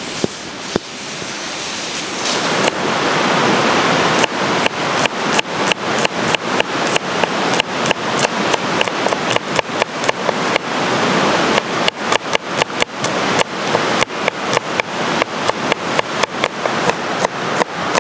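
Kitchen knife chopping garlic cloves on a wooden cutting board: quick, regular knocks about three a second, starting about four seconds in, over a steady rushing noise.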